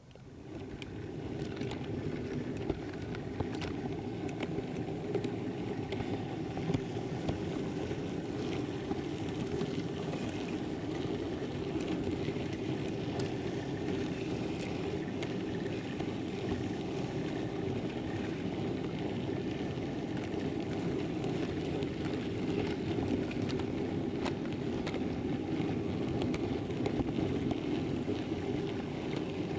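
Model railway wagons rolling along the track, heard from a camera riding on the train: a steady rumble with scattered sharp clicks as the wheels cross rail joints and pointwork. It swells up over the first second or two, then holds steady.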